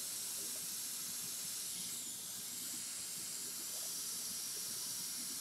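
Steady hiss of compressed air flowing through a tire inflator into a motorcycle inner tube, inflating it to seat the tire beads on the rim.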